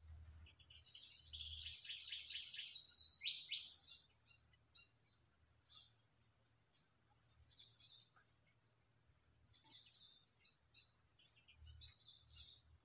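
Steady high-pitched drone of insects, unbroken throughout, with scattered short bird chirps, thickest in the first few seconds and again near the end.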